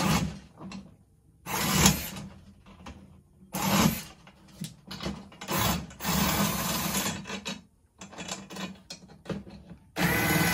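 Power drill with a straight screwdriver bit backing the slotted tension rods out of a Sonor D506 snare drum. It runs in about half a dozen short bursts with pauses between them, and the last burst has a slight rising whine.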